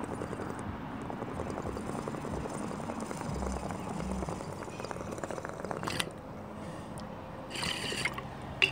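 Water bubbling in a glass water pipe as smoke is drawn through it, then a brief hiss and a sharp click near the end.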